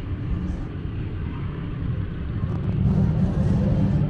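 Street traffic: a steady low rumble of vehicle engines, growing a little louder about three seconds in.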